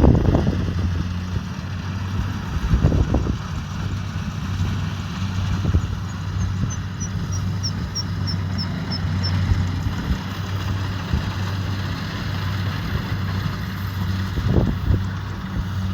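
Kubota DC70 Pro combine harvester's diesel engine running steadily, with irregular low gusts of wind on the microphone. Midway, a bird gives a quick descending run of about ten short high notes.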